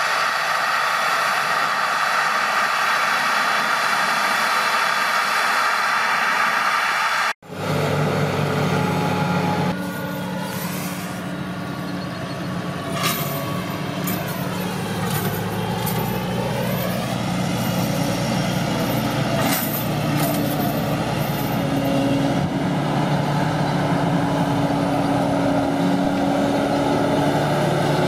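Heavy diesel farm machinery running steadily. There is a sudden cut about seven seconds in, after which a lower engine note takes over, with a whine that dips and rises about halfway through and a few brief hisses.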